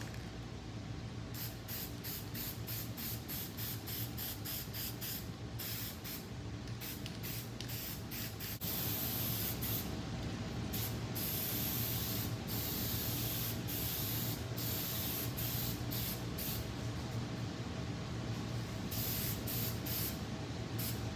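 Flat black spray paint hissing out onto a dash bar, first in many short spurts, then in longer, nearly continuous passes from about nine seconds in.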